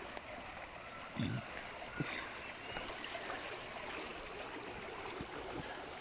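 Small, fast-flowing stream rushing steadily along its narrow channel, with a brief low thud about a second in.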